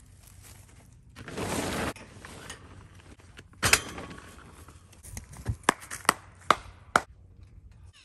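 Tarp cover of a portable car tent rustling as it is pulled over the steel tube frame, with one rushing swish about a second in. Several sharp knocks and clicks follow, most of them close together near the end.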